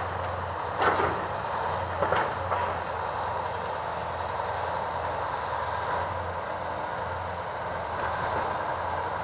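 EO-4225A hydraulic crawler excavator's diesel engine running steadily as the machine works. There are three sharp knocks in the first three seconds, as the bucket empties over the dump truck.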